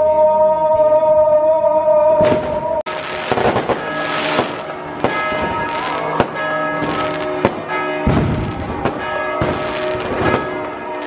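Church bells ringing for the Greek Orthodox Easter Resurrection, while firecrackers and fireworks go off again and again in sharp bangs. For the first few seconds a held musical note sounds, then cuts off abruptly as the bells and bangs begin.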